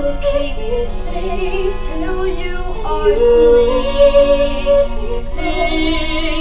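Theatre ballad music: a female voice holds long notes with vibrato over the accompaniment.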